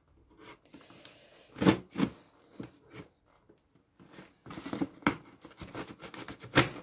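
Packing tape and cardboard being picked at and torn as a taped delivery box is prised open: a run of short scratches, taps and rips, with two louder ones about two seconds in, a busier patch later and a sharp one near the end.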